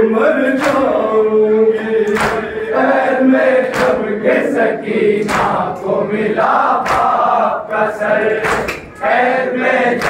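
Group of men chanting an Urdu noha lament in unison, with a sharp slap about every second and a half keeping the beat.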